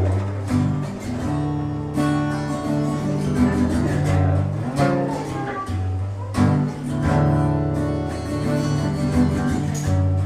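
Guitar intro, strummed chords changing every second or two, with no singing yet.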